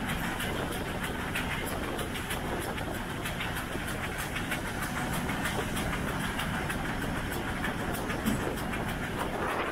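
1906 StEG-built 0-8-0 steam locomotive 414.096 running at speed, heard close by: a steady rush of wheels on rail with a fast, regular beat. There is one brief louder knock near the end.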